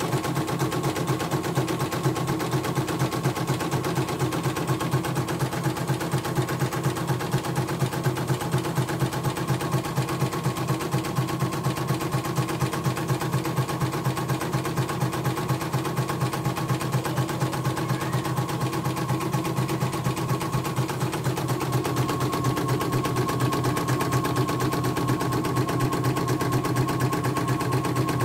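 CNY portable embroidery machine stitching a design, its needle running in a rapid, even rhythm. The tone shifts slightly about twenty seconds in.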